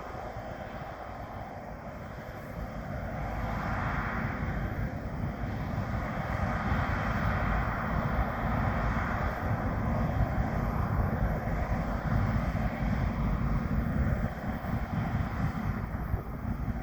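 John Deere combine harvester working a wheat field: a steady, dense engine and machinery drone that grows louder over the first several seconds, then holds.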